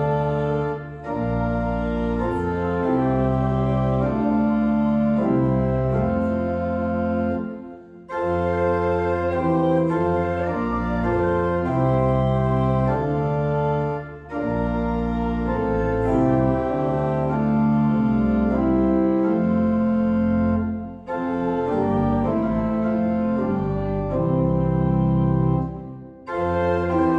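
Church organ playing held chords in slow phrases, with a short break between phrases about every six or seven seconds.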